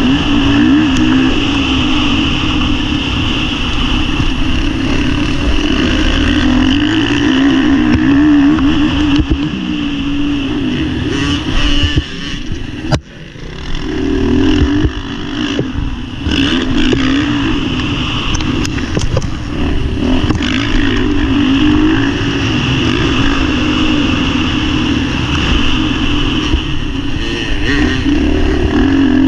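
Motocross bike's engine at high revs, its pitch wavering up and down as the throttle is worked around the track. About twelve seconds in it drops away sharply for a moment, then picks up again.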